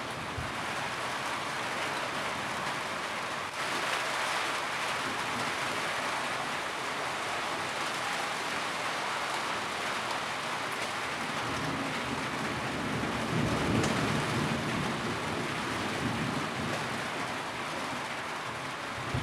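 Steady rain falling on a roof, with a low rumble of thunder swelling and fading about two-thirds of the way through.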